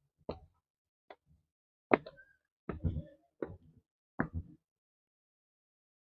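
Footsteps on a trail at a walking pace, about six steps, each a short dull thud. They stop about four and a half seconds in.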